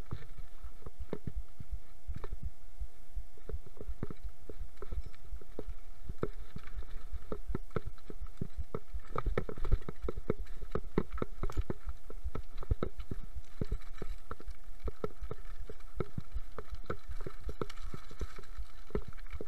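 Mountain bike clattering down a rocky trail: an irregular stream of knocks, rattles and thuds from the bike and its mounted camera jolting over stones, over a low rumble and a faint steady whine.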